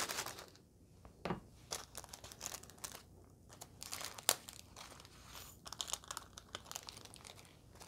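Thin plastic seasoning sachet crinkling and being torn open by hand, with faint, irregular crackles as the dried vegetable flakes are shaken out of it.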